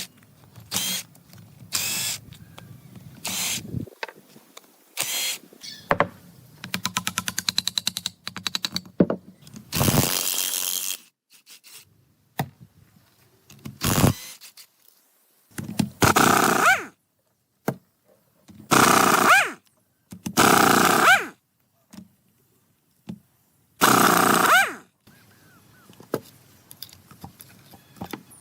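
Workshop tool noise: separate knocks, a run of rapid clicks, and several short bursts of a power tool, each lasting about a second and rising in pitch near its end.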